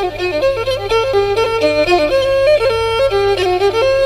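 Instrumental intro of a song: a bowed fiddle, the Thai so, playing a quick melody that steps rapidly from note to note, over a faint steady low hum.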